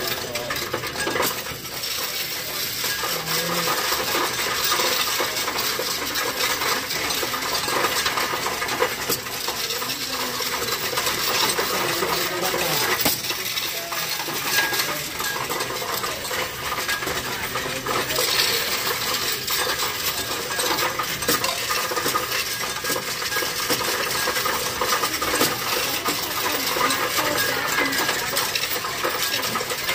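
Loose coins rattling through a coin-counting machine as it counts them: a steady clatter of many small metallic clinks.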